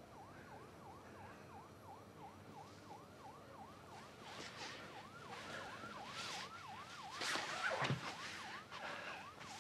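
Faint distant siren in a fast yelp, its pitch swooping up and down about three times a second. A few brief soft hissing noises come over it in the second half.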